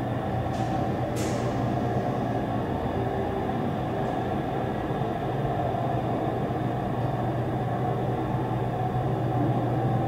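Large Dover hydraulic freight elevator car travelling down the hoistway, a steady low hum and rumble throughout. Two brief hisses come about a second in.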